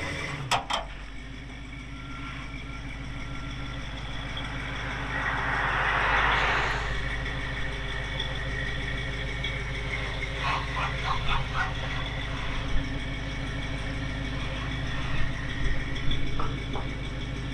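1979 International Scout II's engine idling steadily. A broad whoosh swells and fades about five to seven seconds in, and light clicks and knocks come now and then.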